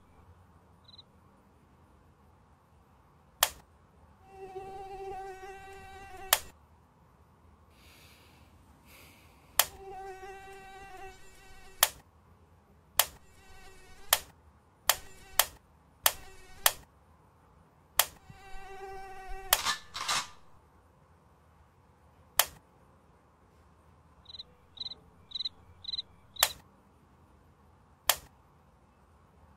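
Mosquito whine, a buzzing tone with many overtones, comes and goes in three spells of about two seconds. Sharp clicks of a bedside lamp switch come before and after each spell, with a quick run of clicks in the middle. About twenty seconds in there is a louder blast, a shotgun, and near the end a cricket chirps five times in quick succession.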